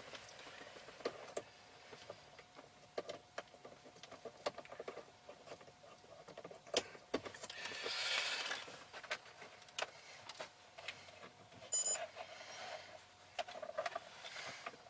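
Scattered plastic clicks and rustling from a dash cam power cord being handled and tucked into trim. About twelve seconds in comes a short, high electronic beep from a Garmin Dash Cam Mini 2, its warning that no SD card is inserted.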